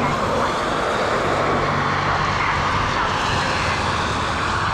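Road traffic passing through an intersection: a steady rush of tyre and engine noise, with a low engine hum underneath.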